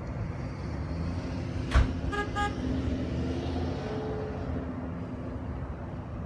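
A van driving past with a steady low rumble. A sharp knock a little under two seconds in, followed at once by two short horn toots.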